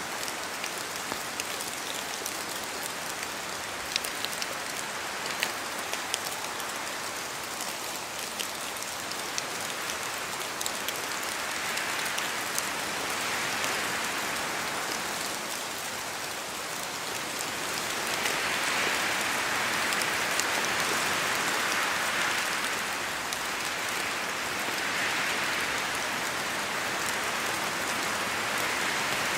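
Steady rain in a forest, with sharp single drops ticking in the first few seconds, then the hiss swelling louder three times as gusts of wind shake the trees.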